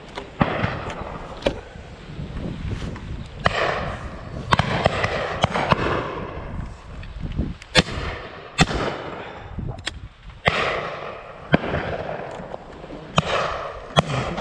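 Shotgun shots on a driven pheasant shoot, about a dozen at irregular intervals, some near and some further down the line, each trailing off in an echo. One much louder shot comes about eight seconds in.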